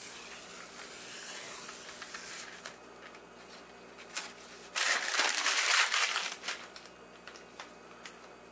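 Green masking tape being peeled off a wooden cabinet, crinkling and tearing; the loudest rip comes about five seconds in and lasts about a second and a half.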